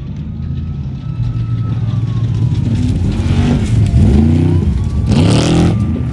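Desert-racing trophy truck engine running hard as the truck passes, its pitch swooping up and down several times with the throttle. A short, loud rush of noise comes about five seconds in.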